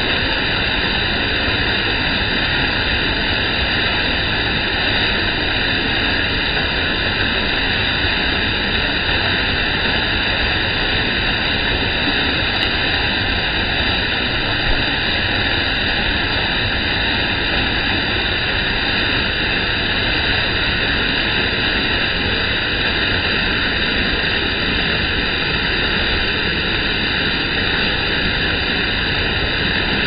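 Waterfall pouring down a rock face, heard close by: a loud, steady rush of falling water.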